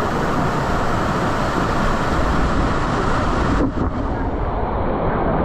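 Loud, steady rush of falling water from a waterfall, with a brief dip about two-thirds of the way in.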